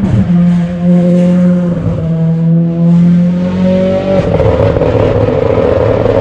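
Hyundai i20 N Rally1 rally car's turbocharged four-cylinder engine running hard at high revs, its note held nearly steady and easing down slightly. About four seconds in the sound turns rougher and lower-pitched.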